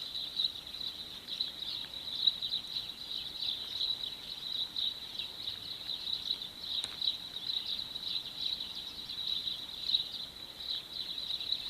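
Crickets chirping in a steady chorus, a dense pulsing trill.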